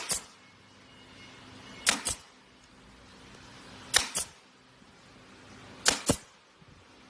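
Brad nail gun firing about every two seconds, each shot a sharp double snap, with a faint hiss swelling before each shot.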